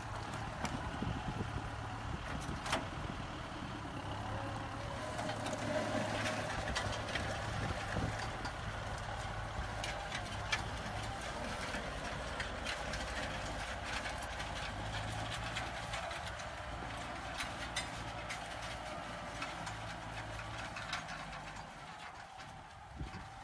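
Kubota M6040SU tractor's diesel engine running steadily under load while pulling a disc plough through dry soil, with scattered clicks and knocks. The engine fades near the end as the tractor moves away.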